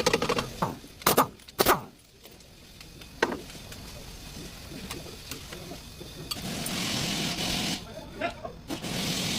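Brake-job workshop sounds: a few sharp knocks and clanks of tools on metal in the first few seconds, then two stretches of steady hissing, one about six seconds in and another near the end.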